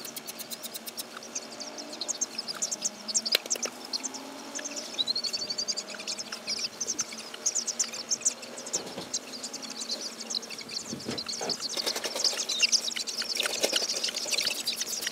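A flock of young chickens peeping and chirping as they wander out of the coop, many short high chirps that grow busier and louder near the end.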